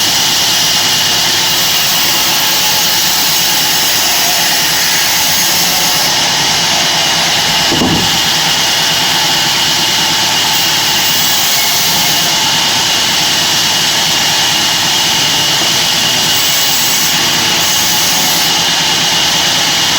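Sawmill band saw running with a loud, steady, hissing noise. There is a brief low thump about eight seconds in.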